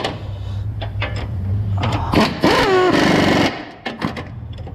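Half-inch air impact wrench tightening a crossmember nut: a steady low hum, then from about two seconds in a loud burst of rapid hammering whose pitch falls as the nut draws up. It pauses briefly near the end.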